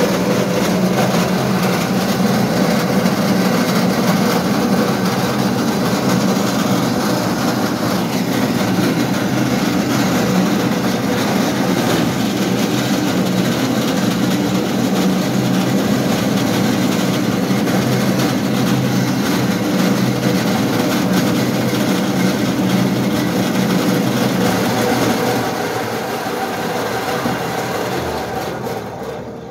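A motor vehicle driving, heard from inside: a steady engine hum and road rumble that ease off near the end as it slows.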